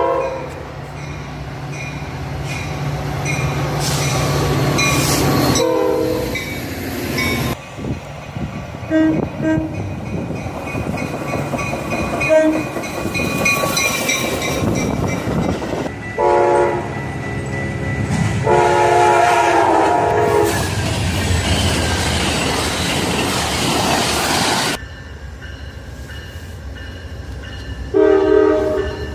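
A string of short clips of trains sounding their horns: several horn blasts, each a chord of several held tones, alternating with the rumble and wheel clatter of trains passing, with sudden cuts from one clip to the next.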